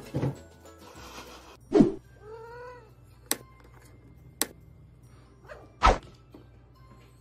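A cat gives one short meow that rises and falls in pitch, just after a heavy thump. Two sharp clicks follow, then another heavy thump about three seconds after the meow.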